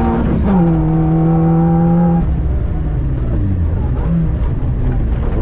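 Citroën C2 VTS's four-cylinder petrol engine heard from inside the rally car on gravel. It is pulling at high revs, and its pitch drops at an upshift about half a second in. About two seconds in the driver lifts off as the car slows from about 74 to 49 km/h, and the revs dip and rise in short blips over a steady rumble of gravel under the tyres.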